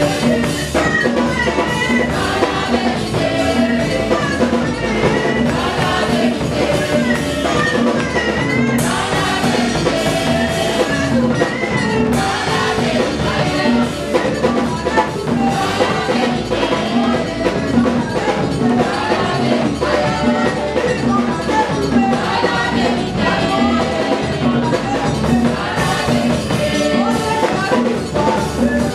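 Live gospel praise music: a group of women singing together into microphones over a drum kit keeping a steady beat.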